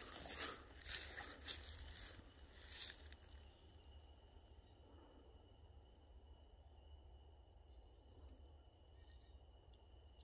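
Footsteps crunching through dry pine straw for the first few seconds, then quiet woods with a steady high insect drone and a few faint short bird chirps.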